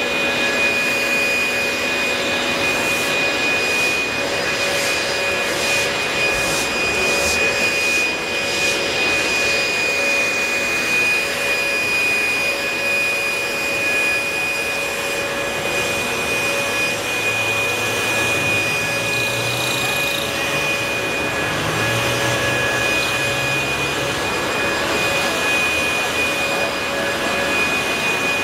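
Leaf blower running steadily, blowing rainwater off wet asphalt: a constant rushing blast with a steady whine.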